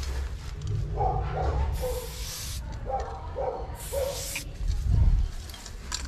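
Spray bottle spraying paint: two hissing bursts, one about two seconds in and lasting about a second, a shorter one about four seconds in.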